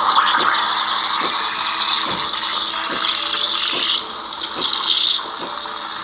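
Gevi 20 Bar espresso machine's steam wand, its Panarello removed, hissing steadily and loudly into a pitcher of milk with the tip held at the surface. It is the aerating stage, injecting air into the milk at the start of steaming.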